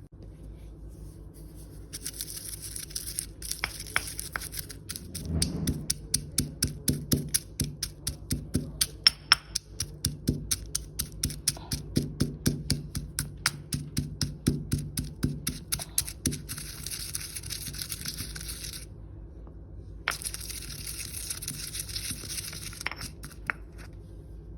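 Pestle pounding in a mortar, crushing ingredients: a run of heavy thuds about two a second for roughly ten seconds, over a steady hiss that drops out briefly near the end.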